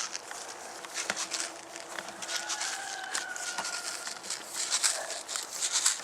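Rustling and crackling of footsteps and clothing moving through dry grass and brush, with scattered sharp clicks.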